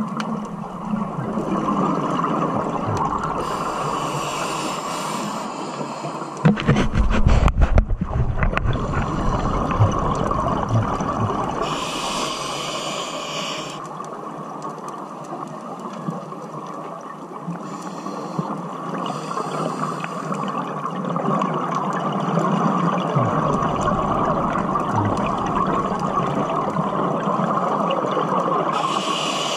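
Scuba diver breathing through a regulator, heard underwater through the camera: a hiss with each inhalation every several seconds and bursts of exhaled bubbles, loudest about seven seconds in, over a steady underwater wash.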